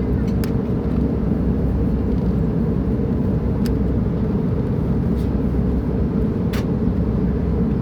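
Steady low roar of an airliner cabin in flight, engine and airflow noise, during the descent, with a few small clicks.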